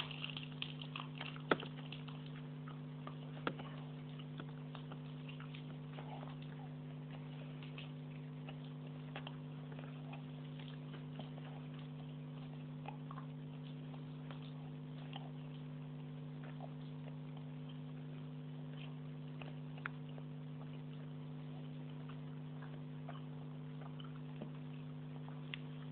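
Steady low electrical hum with scattered faint ticks and clicks, a few sharper ones in the first few seconds.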